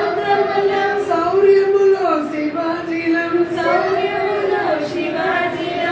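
A woman singing a slow melody in long held notes that glide from one pitch to the next, with young children's voices singing along.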